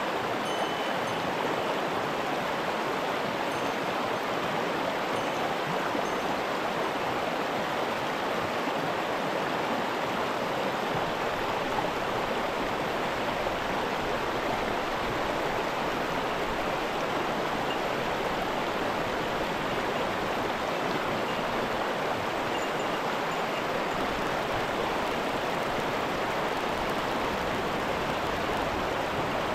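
Fast-flowing mountain stream water, a steady, even rush that does not change.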